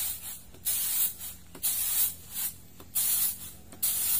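Rice grains tossed on a round woven bamboo winnowing tray (tampah) and landing back on it, a rushing swish repeated about once a second. It is the traditional winnowing of rice to clean out dirt and chaff.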